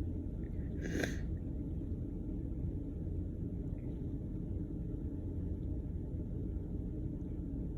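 Steady low background rumble, with one short breath noise from the person about a second in, in a lull between sneezes.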